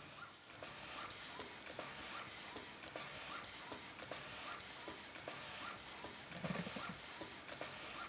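Taylor Twin steam launch engine running, with a steady rhythm of knocks from its bearings, which are not yet adjusted, over a hiss of leaking steam.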